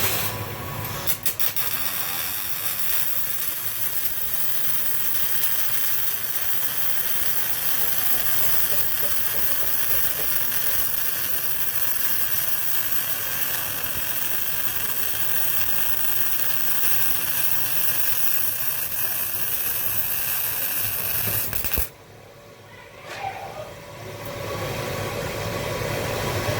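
MIG welding arc laying a bead on steel plate: a steady frying hiss that starts with a few crackles about a second in and cuts off suddenly near the end as the trigger is released. A steadier background noise then rises again.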